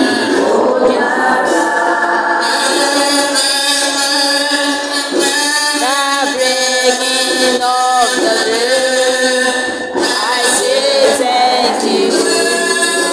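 An a cappella vocal group singing in harmony, with a saxophone-like lead played on a comb covered in nylon (a homemade "combophone", blown like a comb-and-paper kazoo). The lead slides up and down in short phrases through the middle.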